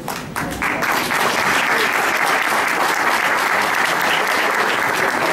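Audience applauding. The clapping starts about half a second in and then goes on steadily.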